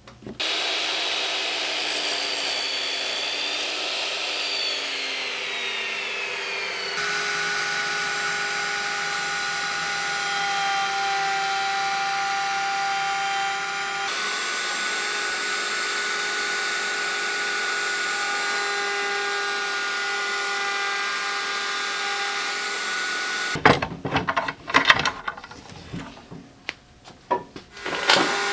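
Wood router in a router table running at speed: a steady high whine, with a brief drop in pitch a few seconds in. Near the end the motor sound stops and gives way to a few seconds of irregular knocks and handling sounds.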